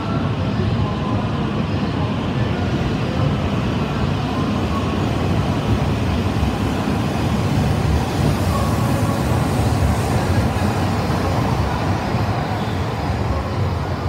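E6 series Komachi shinkansen pulling out of the station, its cars running past the platform with a steady rumble.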